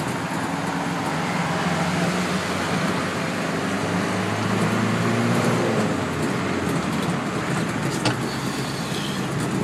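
The four-cylinder diesel engine of a 1991 UD 1200 truck running while under way, heard from inside the cab, with tyre and road noise on wet pavement. The engine's hum eases off about seven seconds in.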